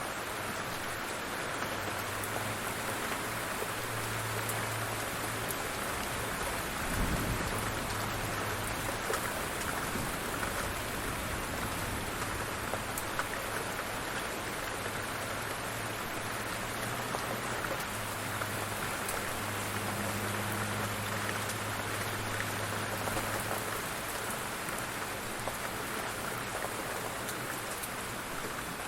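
Steady heavy rain falling, with many individual drops ticking through the hiss. A brief low thump comes about seven seconds in, and a faint low hum comes and goes.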